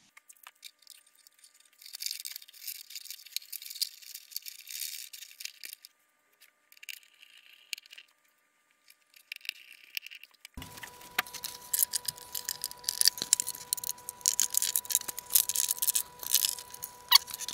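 Small handling noises: faint, thin scratching and rattling at first, then from about ten seconds in a busier run of clicks and rattles over a faint steady hum, as a servo lead is fished through a model aircraft wing panel.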